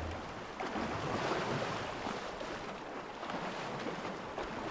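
Elephants wading through shallow water, giving an uneven, continuous sloshing and splashing.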